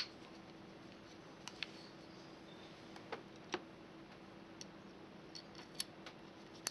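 Faint, scattered small clicks and ticks, about nine of them with the sharpest right at the start, as a blind rivet's mandrel is fed into the nosepiece of a hand pop rivet gun.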